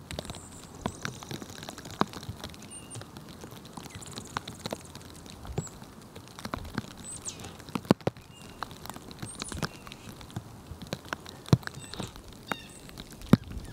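Irregular ticks and soft pattering of small birds kicking and scratching into snow while foraging, with a few short, high bird chirps scattered through.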